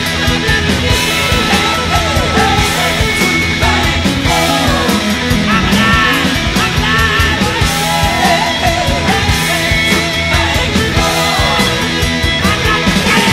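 Loud rock music with a steady drum beat and a singing voice.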